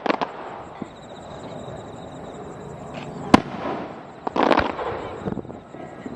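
Aerial fireworks bursting: a sharp bang a little past three seconds in, then another bang with a spray of crackling about a second later.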